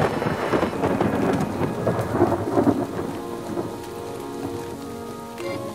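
Thunderstorm: steady rain with a rolling rumble of thunder that is loudest at first and dies away after about three seconds.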